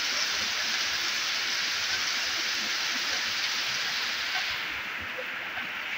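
Heavy rain pouring down onto a flooded street, a dense steady hiss. About four and a half seconds in it turns a little duller as the highest part of the hiss drops away.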